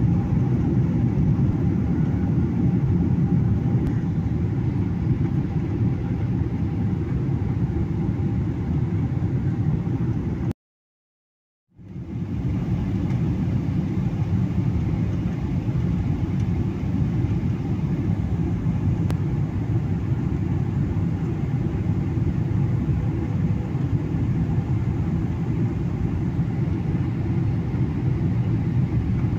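Steady low cabin rumble of a Boeing 737 airliner on approach, its jet engines and rushing air heard from a window seat. The sound breaks off completely for about a second around ten seconds in, then resumes unchanged.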